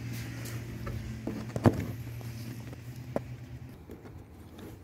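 Long-nose pliers gripping and twisting a plastic bungee-cord fitting in a kayak's hull to loosen it: a few sharp clicks and scrapes, the loudest near the middle. A steady low hum runs underneath and fades out about three seconds in.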